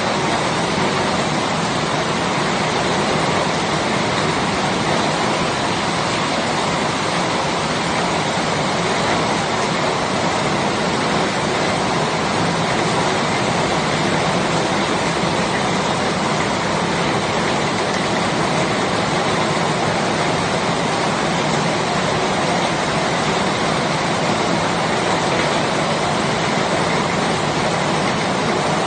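Steady, heavy rainfall: a constant, even hiss of rain with no distinct drops or changes.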